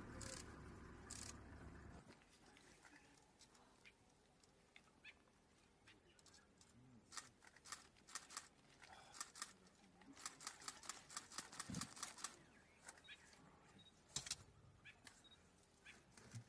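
Faint background with runs of short, sharp clicks coming in quick bursts, thickest from about seven to fifteen seconds in.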